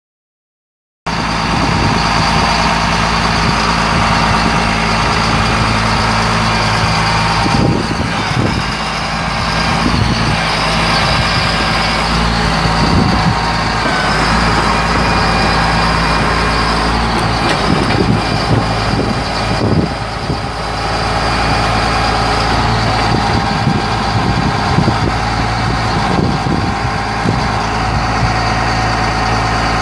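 The truck's Caterpillar 3126 7.2 L inline-six turbo diesel starts sounding about a second in and runs steadily at idle. It is powering the hydraulics of the IMT knuckle-boom crane while the boom is worked, with a steady high whine over the engine.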